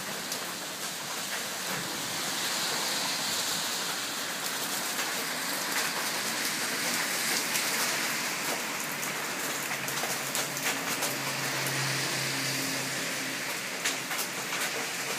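Heavy typhoon rain pouring down, a steady hiss with scattered drops ticking on nearby surfaces, swelling and easing. A faint low hum comes in about two-thirds of the way through.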